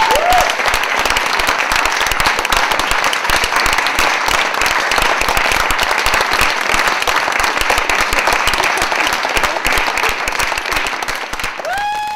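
Theatre audience applauding steadily with dense clapping, with a short high-pitched call from the crowd near the end.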